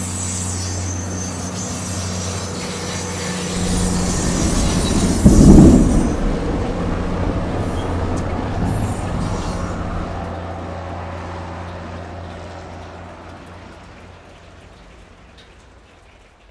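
Steam locomotive working close by: a steady low hum with hiss, and a sudden loud low burst about five seconds in. The sound then fades away gradually.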